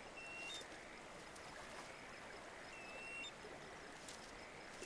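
Faint tidal-shore ambience: a soft, even hiss of water and breeze, with a short high whistled bird call a few times.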